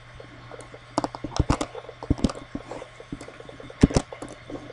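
Scattered clicks and taps from a computer keyboard and mouse, some single and some in quick clusters, over a faint steady low hum.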